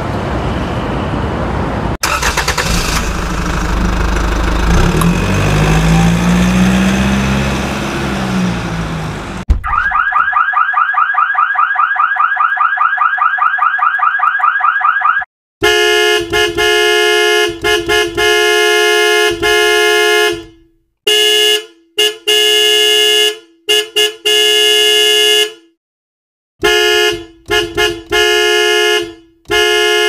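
Vehicle sound effects. First a noisy engine rumble that revs up and back down. About ten seconds in, a fast warbling alarm of rising chirps, about five a second, lasts some five seconds. Then a loud vehicle horn honks in a string of long and short blasts.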